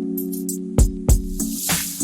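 Background music: held synth chords with drum hits and a rising swoosh near the end.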